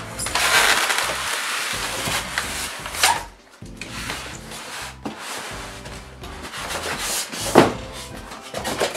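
Rustling and rubbing of a monitor's plastic wrap and styrofoam packing as the panel is handled and lifted out of its box, with a sharp knock about three seconds in and a louder one about seven and a half seconds in.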